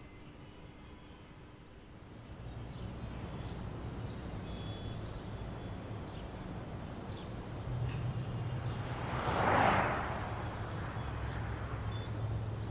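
Outdoor ambience: a low steady rumble sets in about two seconds in, with faint short chirps like birds scattered through it. A whoosh swells and fades about nine to ten seconds in, like something passing.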